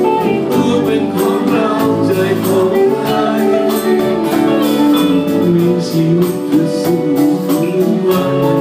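A band playing a Thai song, with guitar over a steady drum beat.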